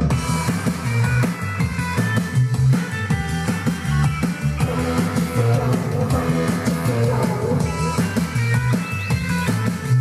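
Rock music with a drum kit and guitar; the drums come in at the start.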